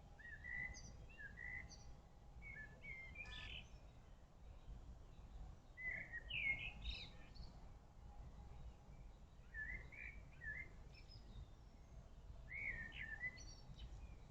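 A bird singing short warbled phrases, repeated about every three seconds, faint over a steady low rumble of wind or background noise.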